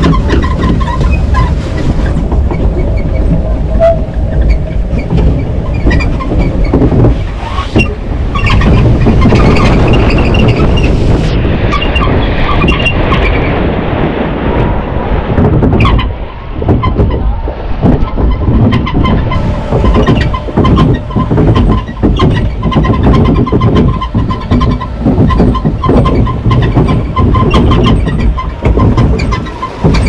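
Mack Rides log flume boat being carried up a mechanical lift: a continuous clattering rumble made of many small clicks, with a steady hum running under it.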